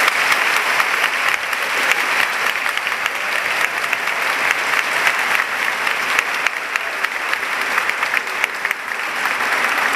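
Audience applauding steadily, many hands clapping together, welcoming a soloist onto the stage.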